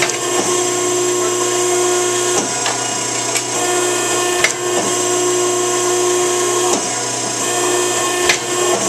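A powered metal shear's motor humming steadily, with a few sharp snaps as the blade cuts short pieces off a steel bar.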